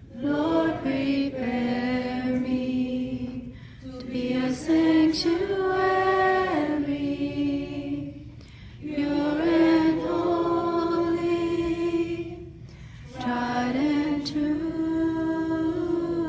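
A group of children and adults singing together without accompaniment, in phrases of about four seconds with short pauses between them.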